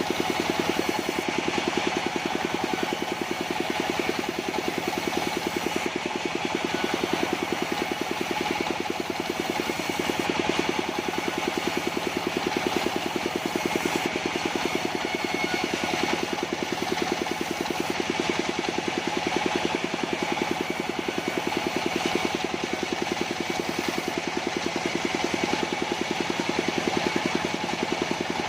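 Mobile sawmill's engine running at a steady speed.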